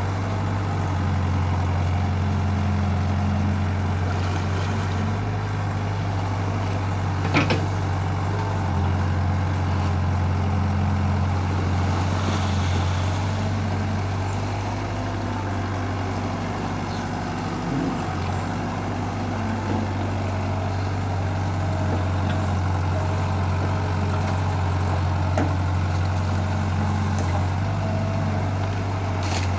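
A heavy machine's engine running steadily at a constant speed, with a deep even hum. A single sharp click about seven seconds in.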